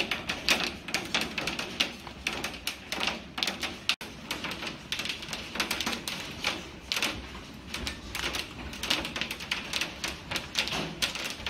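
Hailstones pelting a window pane: a dense, irregular clatter of sharp ticks and taps on the glass.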